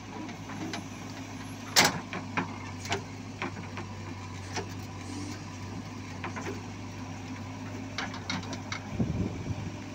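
JCB backhoe loader's diesel engine running steadily with a low hum, under scattered sharp clicks and knocks; the loudest knock comes about two seconds in, and a cluster of them near the end.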